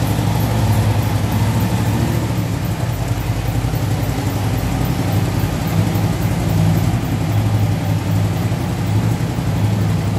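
Large touring motorcycle's engine running at a low, steady idle as the bike creeps forward at walking pace.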